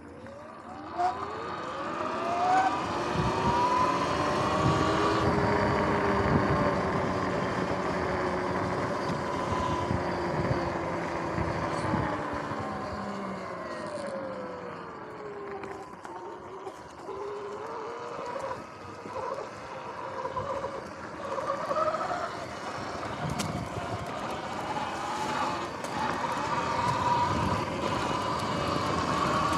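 Sur-Ron X electric dirt bike's motor and drivetrain whine, rising in pitch as the bike speeds up, falling about halfway through as it slows, then rising and wavering again. Tyre and ride noise runs underneath.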